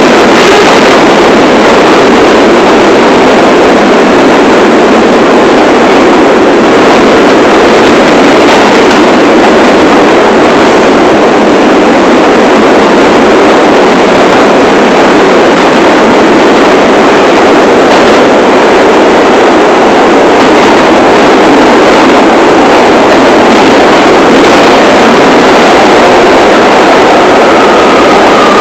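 New York City subway train (1 line) running at speed, a loud steady rush of wheel and track noise, with a faint whine near the end.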